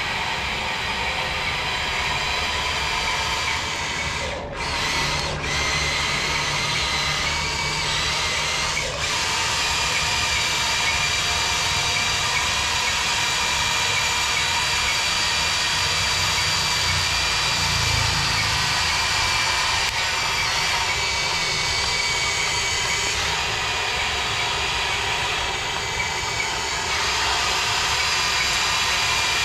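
Toy RC excavator's small electric track motors whining steadily as it crawls, towing a line of toy trucks.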